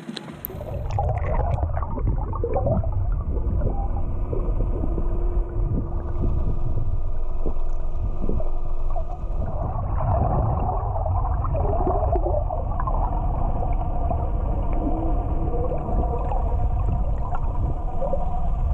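Underwater sound picked up by an action camera held below the surface: a heavy low rumble and water gurgling, with the steady hum of a boat's motor carried through the water. Shortly after the start the sound turns dull and muffled as the camera goes under.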